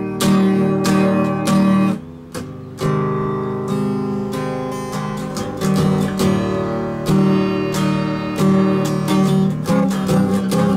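Classical nylon-string guitar strummed in a chord pattern, letting up briefly about two seconds in before the strumming resumes.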